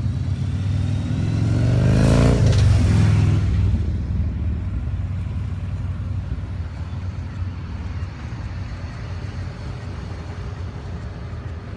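A motor vehicle passes close by, loudest two to three seconds in, its engine pitch rising as it approaches and dropping as it goes past. A low engine rumble carries on steadily under it.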